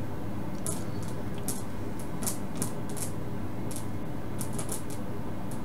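Steady low electrical hum with faint, irregularly spaced short ticks and clicks.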